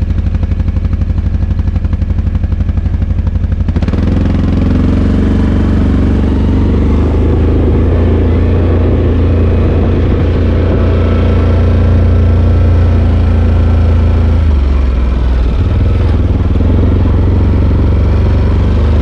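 Four-wheeler (ATV) engine running: an even, pulsing idle for the first few seconds, then about four seconds in it opens up and runs harder and steadier under throttle. A little past the middle its note dips for about a second and then comes back up.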